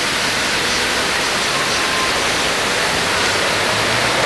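Steady rushing hiss of a large fountain's falling water spray.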